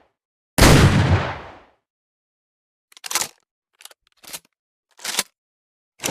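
A double-barrel shotgun fires once, a loud blast with a tail of about a second. After a pause come five short clacks of the gun being handled.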